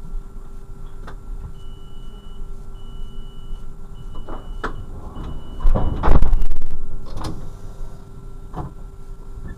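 Class 628 diesel railcar standing with its engine idling and a steady hum, as four short high beeps of the door-closing warning sound. About six seconds in, a loud burst of noise follows as the doors shut.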